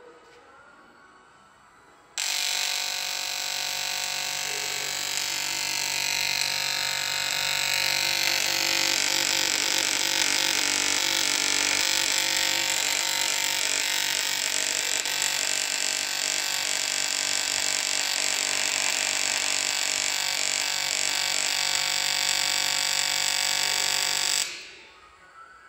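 Merkle MobiTIG 180 AC/DC TIG welding arc at about 110 A: it strikes about two seconds in, holds a steady buzzing hiss while the weld runs, and cuts off shortly before the end.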